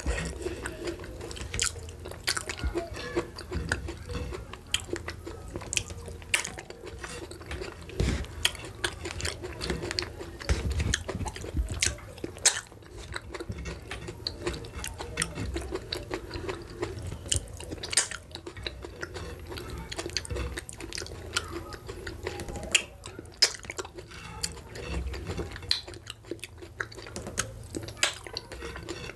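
Close-miked chewing and lip smacking of soft, wet food eaten by hand, with frequent sharp mouth clicks.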